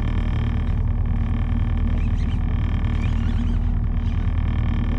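A boat's engine running steadily at low speed, a constant low drone with an even pitch.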